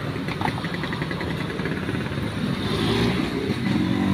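Road traffic noise: a steady rumble of passing vehicles, with a motor vehicle's engine rising in pitch near the end.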